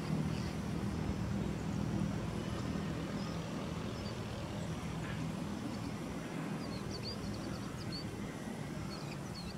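Steady low hum of distant motor traffic. From about two-thirds of the way in, a small bird chirps in short, high notes, several times.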